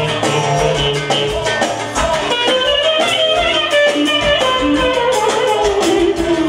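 Live amplified dance music: a clarinet plays an ornamented melody over a steady beat and bass accompaniment, with the melody falling in a run near the end.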